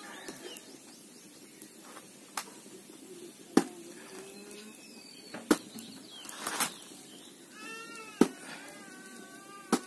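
A small hatchet chopping into a whole green jackfruit: about six sharp chops, roughly one every one to two seconds. A drawn-out, wavering animal call sounds in the last few seconds.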